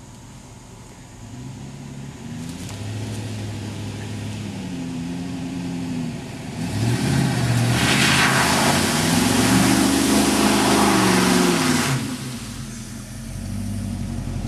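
An off-road 4x4's engine revving up and down as it drives through a flooded mud hole. From about seven to twelve seconds in it is loudest, with a rush of splashing water over the engine, then it drops off suddenly.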